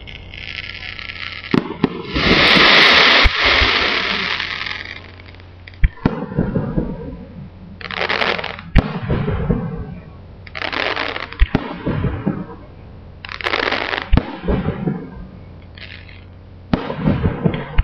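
Fireworks display: aerial shells bursting with sharp bangs, several followed by about a second of hissing crackle from glittering stars, and a longer, louder hiss about two seconds in.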